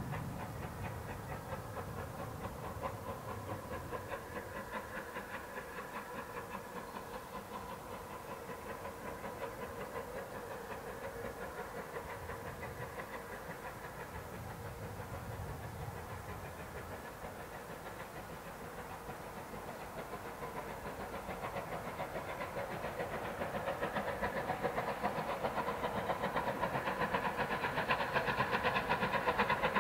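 SR Rebuilt Battle of Britain class three-cylinder Pacific steam locomotive 34053 working a train, its rapid exhaust beats approaching. The beats grow steadily louder over the last several seconds.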